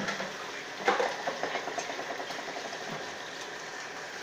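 Red snapper frying in oil in a pan, a steady crackling sizzle, with one sharp knock about a second in.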